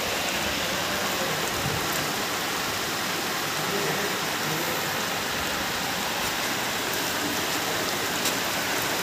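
Heavy rain falling steadily, hitting plastic tarpaulin sheeting.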